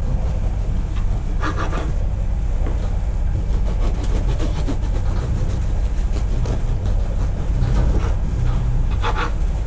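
Sailing catamaran's inboard diesel engine running steadily under motor, a constant low drone.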